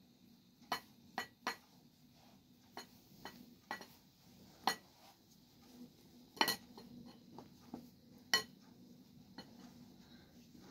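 Irregular sharp clinks and knocks of a utensil against a glass bowl and dishes while dough is filled and shaped. There are about a dozen, the loudest a little after six seconds and a little after eight seconds.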